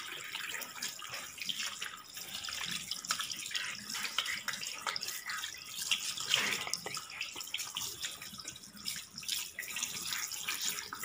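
Water running from a washbasin tap, splashing, as soapy, lathered hands are rubbed together and rinsed under it.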